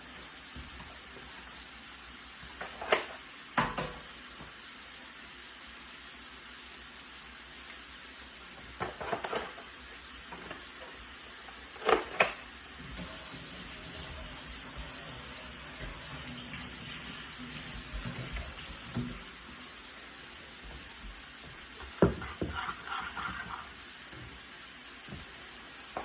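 Kitchen work sounds: a few sharp knocks and clinks of utensils against a bowl over a steady hiss, with a louder hissing stretch of about six seconds midway.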